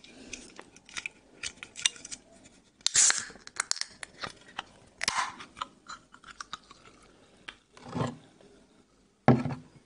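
A carbonated soft-drink can is handled with small clicks and crinkles, then its tab is cracked open with a short fizzing hiss about three seconds in, and a second brief hiss follows about two seconds later. A glass tumbler knocks on the table twice near the end.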